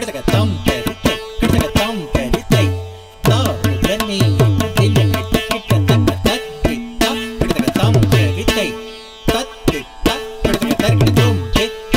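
Instrumental Carnatic-style dance music: a hand drum playing quick rhythmic strokes, with a plucked string instrument and held notes.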